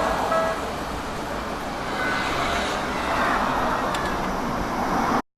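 A Japanese railway level-crossing warning bell gives its last on-off electronic clangs, stopping about half a second in. Road and rail traffic noise follows, with a vehicle passing over the crossing, and the sound cuts off abruptly near the end.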